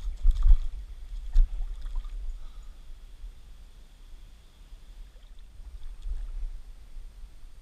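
Creek water splashing and sloshing as a hessian bag is worked by hand in the shallows, with a few sharper splashes in the first couple of seconds. A low rumble runs under it.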